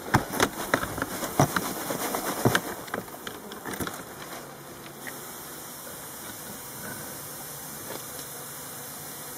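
A mass of honeybees buzzing in a plastic box. Over the first four seconds there are sharp clicks and scrapes as a feather sweeps through the bees, then an even, steady buzz.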